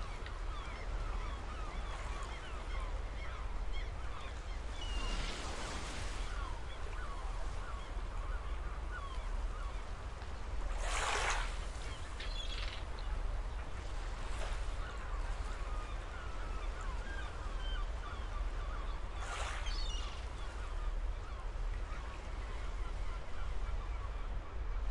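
A flock of birds calling, many short overlapping calls at once over a steady low rumble. A few brief rushing whooshes break through, the loudest about eleven seconds in.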